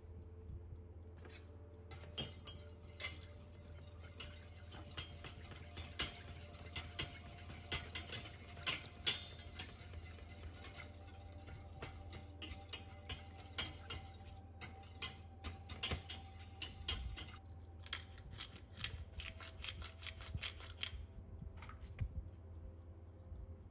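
Metal balloon whisk whisking béchamel sauce in a stainless steel pot, its wires tapping and scraping against the pot in quick, irregular clicks that stop near the end. A steady low hum runs underneath.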